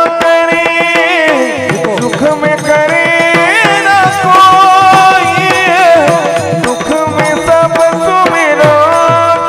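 Warkari devotional music: small brass hand cymbals (taal) clash in a steady rhythm over mridang drum strokes, while a wavering, ornamented melody plays over a steady drone.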